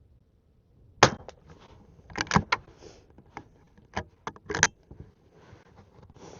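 Henry lever-action .22 rifle shooting standard-velocity .22 LR. A sharp report comes about a second in, then a quick run of metallic clacks as the lever is worked. More sharp cracks and clacks follow around four to five seconds in.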